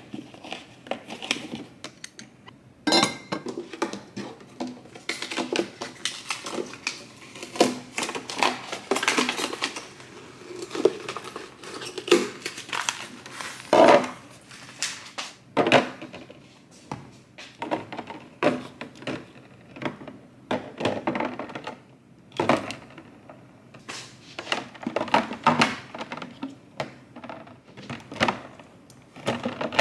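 Kitchen items and containers being handled, knocked together and set down one after another: irregular clinks, knocks and clatters.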